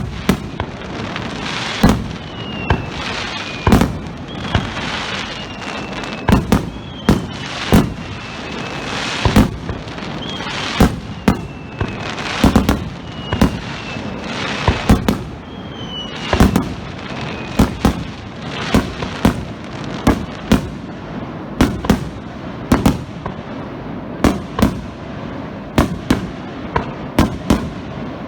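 Starmine fireworks barrage: shells bursting overhead in a fast, irregular string of bangs, with several thin whistles falling in pitch between the bursts in the first half. The bangs come thicker near the end.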